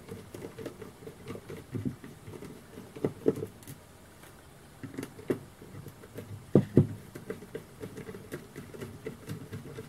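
Small screwdriver backing screws out of the plastic case of an iMAX B6 mini battery charger: irregular small clicks and scrapes of the tool and screws, with a short lull about four seconds in.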